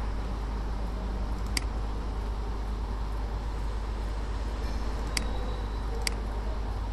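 Computer mouse clicking three times, short sharp clicks with the last two close together, over a steady low hum and background rumble.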